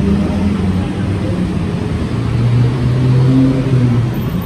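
City street traffic: motor vehicle engines running close by with a steady low hum over the wash of passing traffic.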